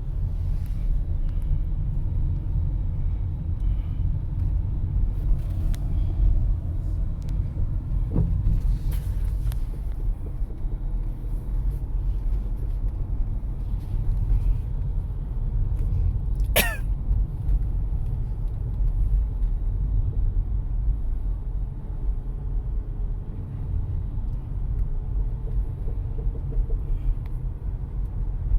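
Car running on the road, heard from inside the cabin as a steady low rumble. A brief sharp high chirp comes about two-thirds of the way through.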